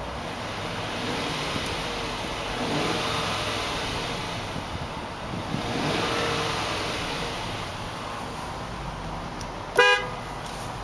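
2006 Range Rover's V8 engine running, revved gently twice and settling back. Near the end, a short, loud blast of the car horn.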